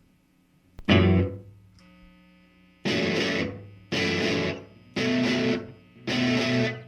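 Distorted electric guitar starting a psychedelic rock song. One chord rings out about a second in, then four short, hard strummed chords follow about one a second.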